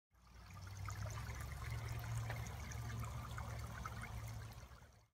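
Barbecue sauce bubbling in a cast-iron Dutch oven, a steady run of small pops and crackles over a low rumble, fading in and out.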